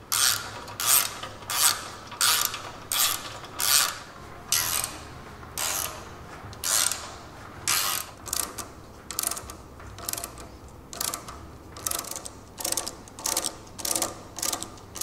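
Hand ratchet wrench worked back and forth to run down a bolt on the front suspension, with a burst of pawl clicking on each swing. There are about one and a half strokes a second, coming a little quicker near the end.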